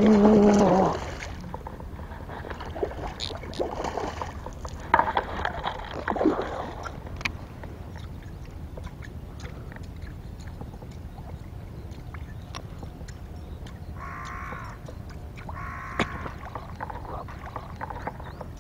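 A Japanese catfish striking a topwater lure at the surface, a loud splash right at the start with a brief shout over it. After that come smaller splashes and knocks as the hooked fish is fought.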